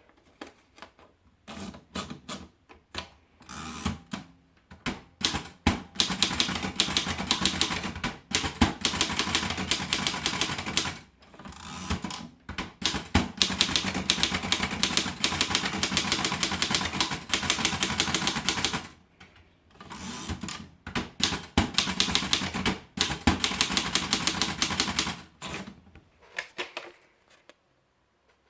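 Erika model 5 portable manual typewriter being typed on: a few scattered keystrokes at first, then long runs of rapid key strikes broken by short pauses, stopping near the end.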